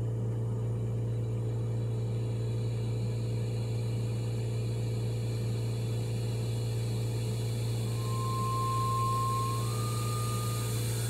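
Puritan Bennett 840 ventilator running its short self-test with the patient Y open: a steady low hum, and from about eight seconds in a whine that steps up in pitch twice. It sounds like it's gonna explode, but it doesn't.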